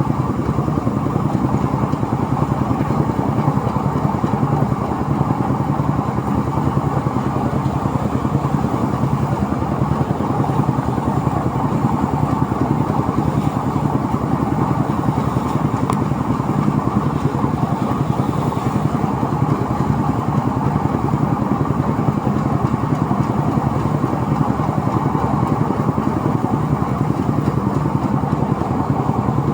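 Engine-driven rice threshing machine running steadily, with an even engine hum and the rush of the threshing drum.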